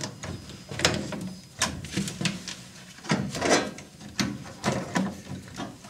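Handles and latches on a metal electrical-equipment cabinet door clicking and knocking as the door is unlocked and opened, a string of irregular sharp clicks. A low steady hum runs underneath.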